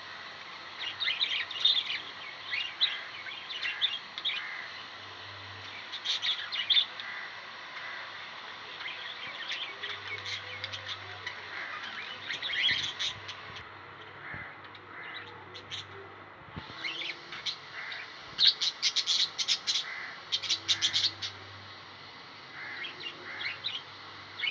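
Parrots chirping and squawking in short, repeated calls, with a louder quick run of calls about three-quarters of the way through.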